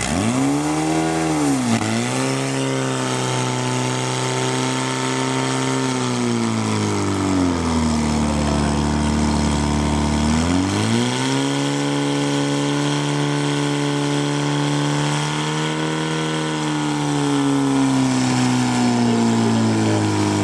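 Portable fire-pump engine running hard under throttle while it pumps water out to the hose lines. Its pitch climbs sharply at the start and dips briefly about two seconds in. It falls for a few seconds around the middle, then climbs back and holds high.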